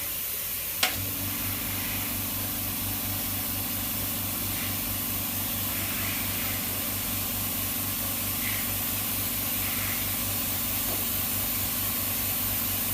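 A sharp click about a second in, then an electrical machine starts a steady low hum that runs on without change, over a constant hiss.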